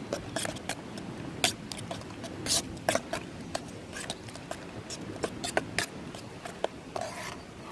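Irregular light clicks and knocks of camping cookware and utensils being handled while eggs are prepared, over a steady low rushing sound.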